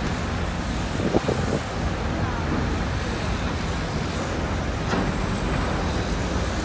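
Steady low rumble and hum of a large ferry's engines and propellers working while mooring at the quay, with a short clatter of knocks about a second in.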